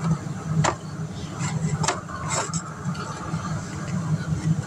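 Plastic toy figures and snap-together pieces clicking and clattering as they are handled, a few separate knocks over a steady low hum.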